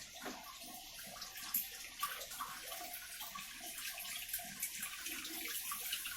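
Water running and splashing into the tub of an LG top-load washing machine, a steady rushing with fine crackling spatter.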